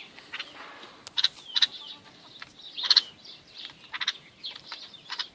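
Bulbuls chirping: a string of short, sharp calls, the loudest about a second in, around three seconds and at four seconds.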